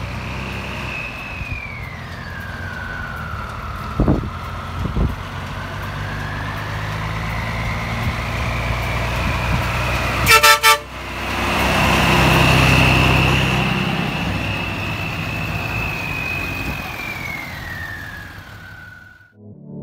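A siren wails slowly, its pitch falling, rising again and falling once more near the end, over the engine of an M35-series 2½-ton military truck driving up and passing close by. A short horn toot sounds about ten seconds in, and the engine noise is loudest just after it as the truck goes past.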